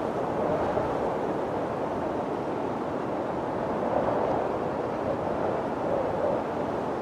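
Snowstorm wind blowing in a steady whoosh, easing slightly through the middle and picking up in gusts near the end.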